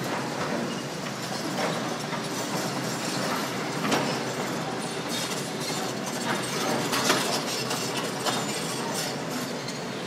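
Demolition excavators working: steady machinery noise with clanks and knocks of metal and rubble, the sharpest about four seconds in and about seven seconds in.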